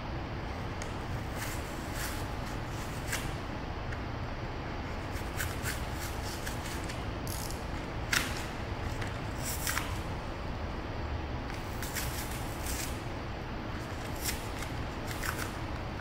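Hand knife scraping and carving the rough white edging of a prop sarcophagus: short, irregular scratchy strokes, a dozen or so, the sharpest about halfway through, over a steady low background rumble.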